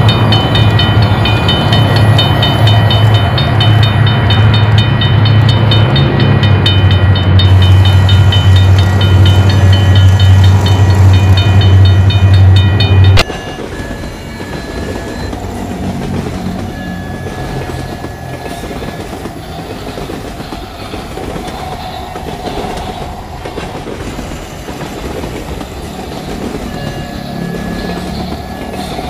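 Battery-powered toy trains running on plastic track: a loud steady hum with fast, even clicking for about the first half, cutting off suddenly, then quieter steady running for the rest.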